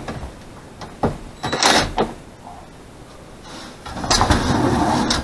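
Knocks and clatter from work on a sliding barn door and its overhead track: a couple of sharp knocks, a louder rattling clatter about one and a half seconds in, and a rough scraping noise lasting about a second near the end.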